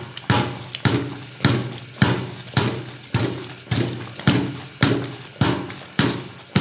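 A ladle beating and scraping thick, steaming rice and meat in a large metal cooking pot in a steady rhythm, about two strokes a second. The rice is being worked continuously over a high flame to make it sticky and creamy.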